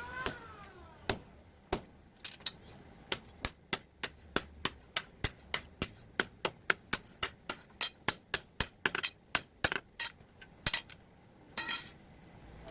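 Hammer striking metal in a long run of sharp blows. A few scattered strikes come first, then a steady rhythm of about three to four blows a second, with a short noisier scrape near the end.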